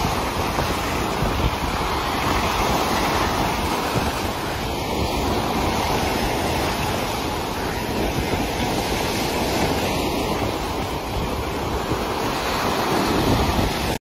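Sea waves breaking and washing in a continuous rush of surf.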